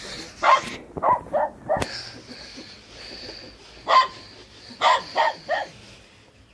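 A dog barking in short, sharp barks: a run of four quick barks, a pause of a couple of seconds, then another run of four.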